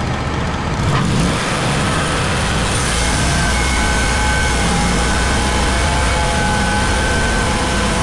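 WoodMizer LT35 sawmill's engine running steadily. About three seconds in, a steady whine joins it.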